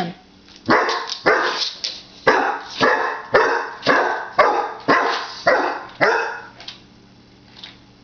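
Basset hound puppy barking at a remote-control toy car: a run of about a dozen loud, sharp barks, roughly two a second, that stops shortly before the end.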